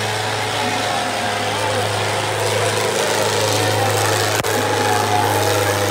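Diesel tractor engines running hard under full load as two tractors pull against each other in a tug-of-war, with a crowd shouting over them.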